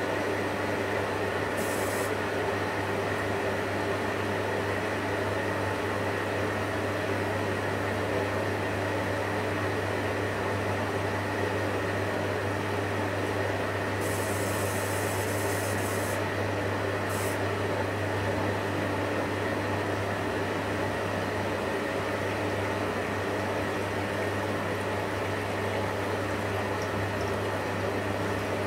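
Electrolux EWF 16589 W front-loading washing machine running with a steady hum while water runs into the drum. Short hisses come about two seconds in and again from about fourteen to seventeen seconds.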